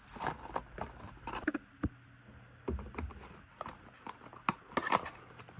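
Trimmer accessories and packaging being handled during unboxing: irregular clicks, taps and light rustles, loudest in a cluster of knocks near the end.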